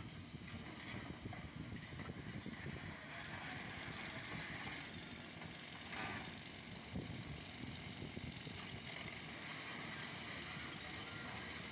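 Volvo EC480DL excavator's diesel engine running steadily, with a couple of brief knocks about six and seven seconds in.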